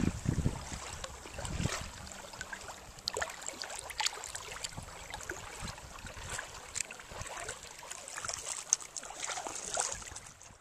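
Water splashing at the surface in the first two seconds as a smallmouth bass held at the water's edge is let go, then light lapping and trickling water.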